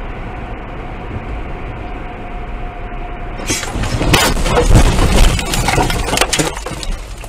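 Car cabin road noise while driving, then about three and a half seconds in a car crash: a loud run of impacts, crunching and rattling as the car is struck and runs off the road, dying away over about three seconds.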